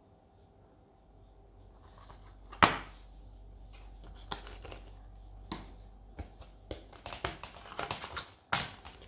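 Plastic Blu-ray case being handled and opened: a sharp click a little under three seconds in, then a run of smaller clicks and rustling, and another loud click near the end.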